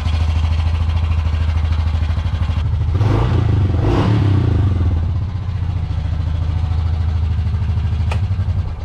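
Honda Pioneer 500's single-cylinder engine running just after starting, on its newly installed Power Commander V fuel controller. Its revs rise briefly about three seconds in, and it cuts off at the very end.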